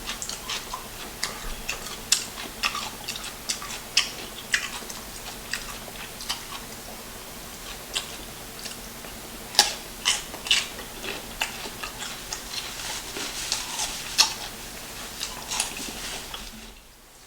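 Close-miked chewing of a mukbang eater: irregular wet clicks, smacks and crunches of a mouthful being chewed, stopping shortly before the end.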